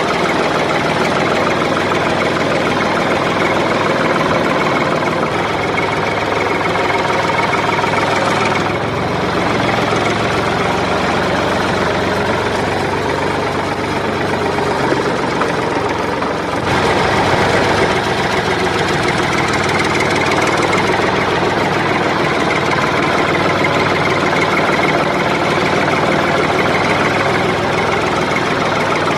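A vehicle engine running steadily with a dense, rattling drone. It changes abruptly twice, about a third and just over halfway through.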